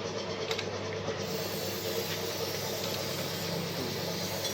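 Steady mechanical hum of workshop machinery with a few faint light clicks, and a high hiss that comes in about a second in.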